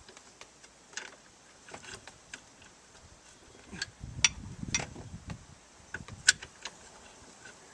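Scattered metallic clicks and clinks of strut mounting bolts and tools being handled at the strut, with two sharper clinks about four and six seconds in.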